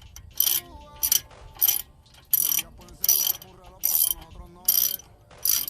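A hand ratchet being worked back and forth in strokes, each stroke a short burst of ratchet clicking, about eight in a row at a steady pace.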